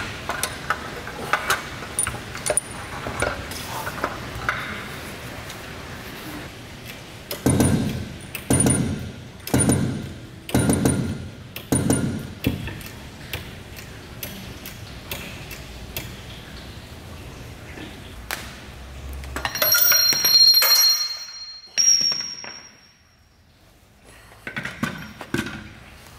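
Metal clicks and clinks from a hydraulic puller, then about five heavy strokes a second apart as the hand pump drives the hydraulic cylinder. A loud metallic ping with high ringing follows as the press-fit gear coupling breaks free of the shaft. A few clinks come near the end.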